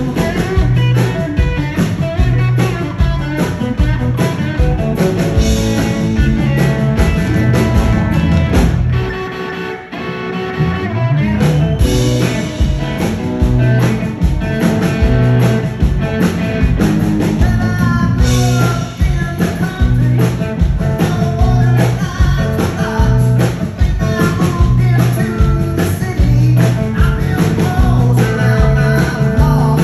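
Live rock band playing, with Telecaster-style electric guitar over bass guitar and drums. The drums and bass drop out briefly about ten seconds in, then the full band comes back in.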